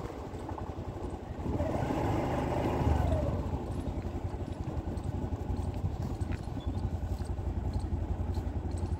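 Vehicle engine and road noise heard from a moving vehicle, a steady low rumble. About two seconds in it grows louder, with a held tone that drops in pitch as it fades.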